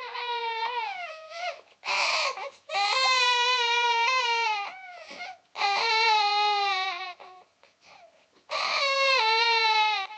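A young child crying hard: four long, high wails, each sliding down in pitch at its end, broken by gasps and a ragged sob about two seconds in.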